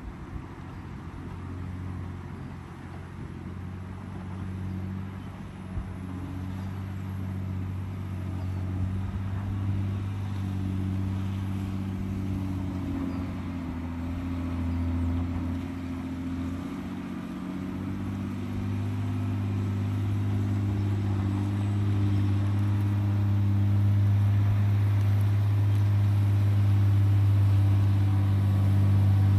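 John Deere 670 GP motor grader's diesel engine running under steady load, its low drone growing steadily louder, with a few small shifts in engine pitch in the middle stretch.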